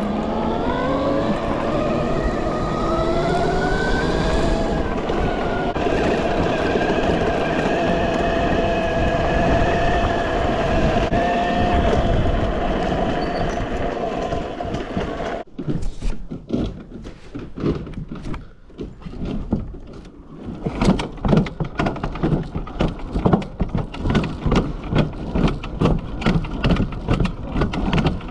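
Electric e-bike motor whining under a rush of wind and tyre noise, its pitch rising for the first few seconds as it accelerates, then holding steady. About halfway through, the whine cuts off and gives way to dense, irregular knocking and rattling.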